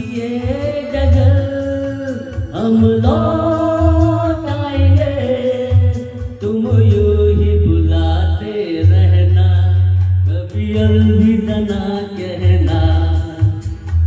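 A man singing a song into a corded microphone through a speaker, in long held phrases.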